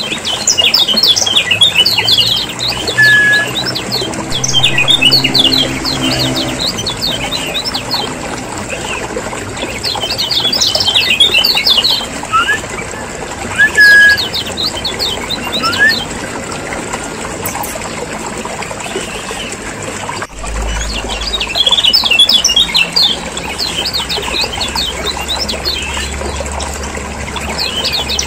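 Kecial kuning (a yellow white-eye) chattering in repeated bouts of rapid, high, scratchy notes, with a few short clear whistled notes between bouts: a busy bird-lure (pikat) recording. A low hum runs under the second half.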